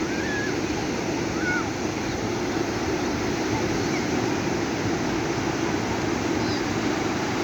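Sea surf washing steadily onto a beach, a constant low roar of waves, with a few faint distant calls early on.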